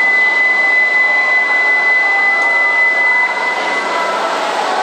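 A steady, high electronic warning tone sounds as the E7-series Shinkansen's doors close, then cuts off about three seconds in. It sits over a steady hiss from the train and the platform.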